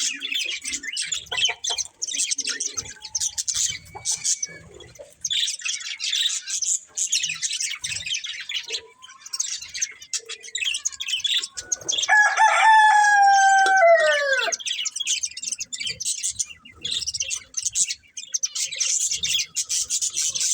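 Budgerigars chirping and warbling continuously in quick, busy chatter. About twelve seconds in, a single long, louder call holds its pitch for about two seconds and then falls away.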